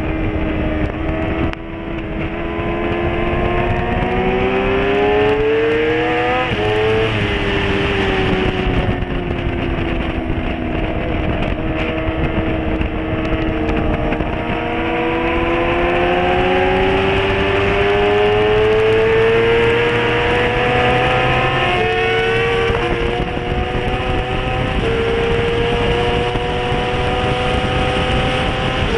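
Motorcycle engine running hard on a race track: its note climbs steadily under acceleration and drops abruptly a few times with gear changes and braking.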